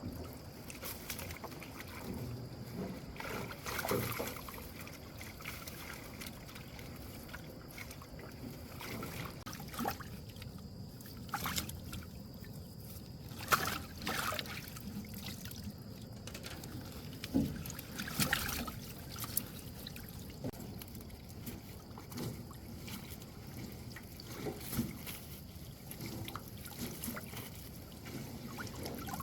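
Water sloshing and trickling around a small boat on a lake, with irregular splashes and knocks, a few of them louder.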